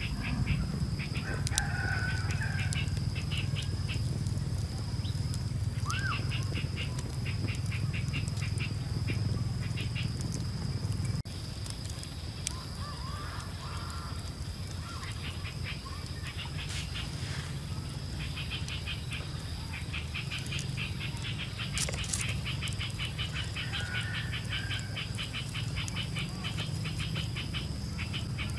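Outdoor rural ambience: a steady low rumble under a thin, steady high tone, with repeated runs of rapid high-pitched clicking and a few short bird chirps.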